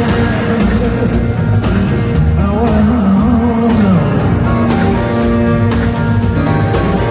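A rock band playing live, with electric guitars over bass and drums in a blues-rock groove and a gliding lead line about halfway through.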